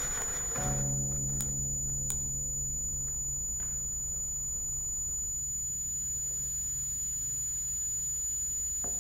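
Electroacoustic improvisation: a steady, high, pure electronic tone sustained throughout, with a low drone of several held tones coming in about half a second in and slowly fading away. A couple of faint clicks come early, over a low rumble.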